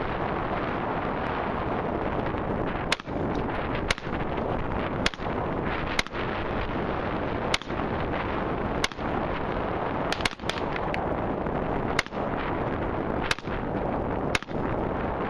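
Semi-automatic rifle fired one shot at a time, about a dozen shots roughly a second apart, beginning about three seconds in, with a quick run of three near the middle. A steady rush of wind on the microphone fills the gaps between shots.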